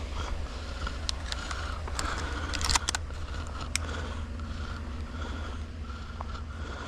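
Vehicle rolling slowly along a gravel road, a steady low engine and tyre rumble. A cluster of sharp clicks and rattles comes between about one and four seconds in, loudest near three seconds.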